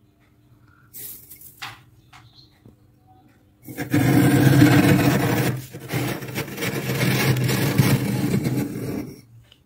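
Rim of a clear drinking glass scraping through thick, flaky freezer frost. A few faint scratches, then a long, loud crunching scrape with one short break partway, which stops shortly before the end.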